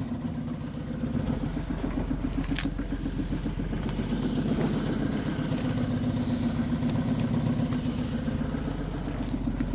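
Opel Corsa 1.0 three-cylinder petrol engine idling steadily, with an even, fast pulse. A short click comes about two and a half seconds in.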